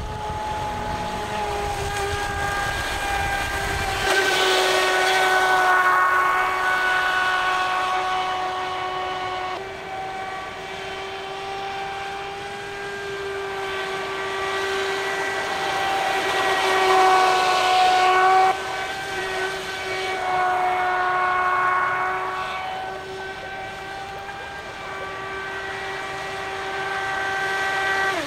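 Traxxas Spartan RC boat's Velineon brushless motor, on a 4S LiPo, whining steadily at speed as the boat runs across the water, its pitch shifting a little with throttle. The hiss of the hull and spray swells and fades several times as the boat passes and turns.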